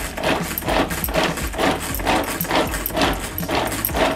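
Hand-pulled string vegetable chopper worked in quick repeated pulls, each pull a whirring rattle of the blades spinning through chopped vegetables, about two to three pulls a second.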